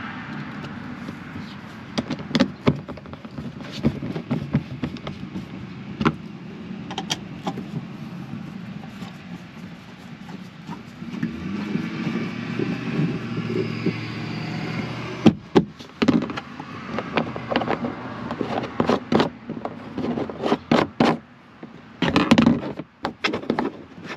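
Hand tools and hard plastic cargo-area trim being handled: scattered sharp clicks and knocks of a screwdriver working and being set down, coming thick and fast in the last third, over a steady background rumble.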